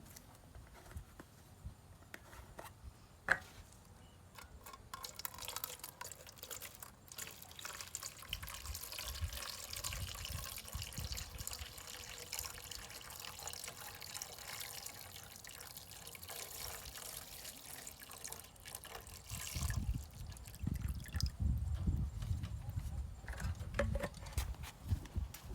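Water running or pouring steadily for about fifteen seconds, then stopping, followed by low knocks and handling noise near the end. A single sharp click comes a few seconds in.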